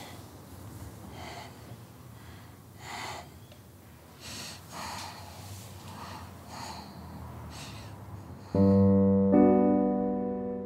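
A few soft breathing sounds over quiet room tone, then near the end piano chords come in loudly, two struck close together and left to ring and fade.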